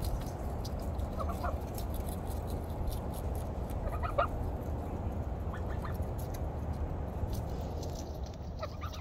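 White domestic goose giving a few short, soft calls spaced a couple of seconds apart while it pecks at lettuce, over a steady low rumble.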